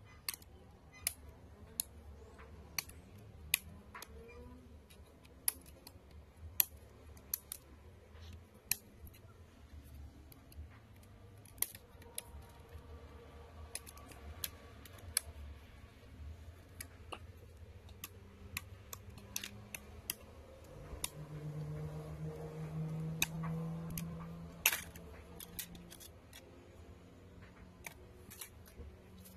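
Snap-fit clips of a Dell laptop's plastic screen bezel clicking loose one after another as a pry tool works around the edge: many short, sharp clicks at irregular intervals. A low hum rises for a few seconds past the middle.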